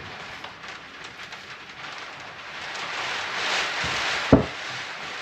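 Steady rain hiss with a single sharp, dull knock a little past four seconds in, like a tool or part set down on the bench.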